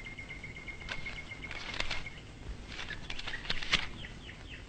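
Faint bird chirps and short clicks, with a steady high whistle-like note through the first two seconds.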